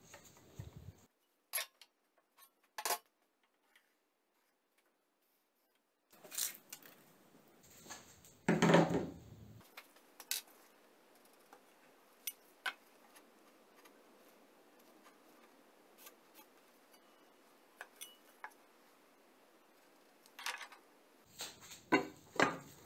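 Intermittent small metallic clinks and knocks of tools being handled and set down, with a louder scrape lasting about a second roughly nine seconds in and a cluster of knocks near the end.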